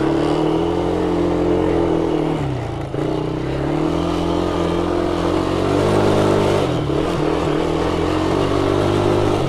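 Polaris 110 ATV's small single-cylinder engine running under throttle across rough ground. Its pitch drops as the throttle is eased about two and a half seconds in and again near seven seconds, then rises each time as it picks back up.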